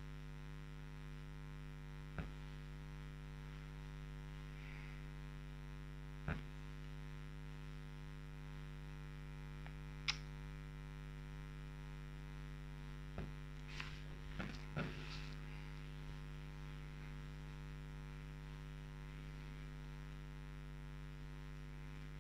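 Steady electrical mains hum, with a few soft clicks about two, six and ten seconds in and a short cluster of clicks a little past the middle.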